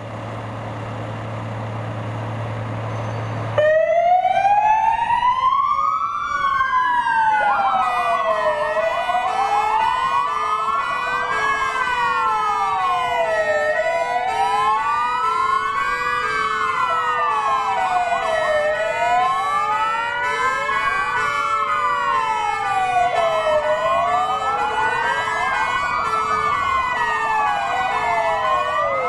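Several airport fire-rescue vehicle sirens wailing together, each rising and falling slowly and out of step with the others, starting suddenly about three and a half seconds in. Before them a steady hum, and from about seven seconds a regular pulsing tone under the wails.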